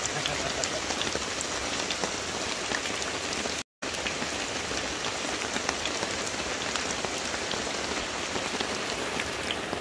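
Heavy rain falling steadily, with many separate drop hits. The sound cuts out for an instant about four seconds in.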